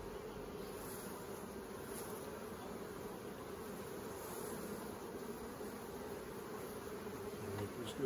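Honeybees buzzing steadily around an opened hive, a dense unbroken hum. The colony is agitated by the disturbance, "really mad".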